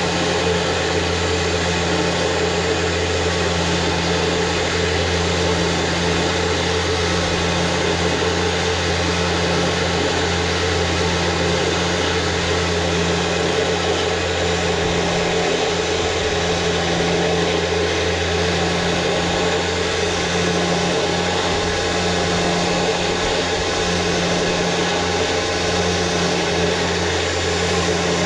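Electric winch motor running steadily as it spools synthetic rope onto the drum, a continuous even hum.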